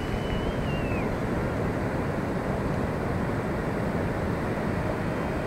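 Steady rushing noise of wind and surf, with a faint high whistle that drops away about a second in.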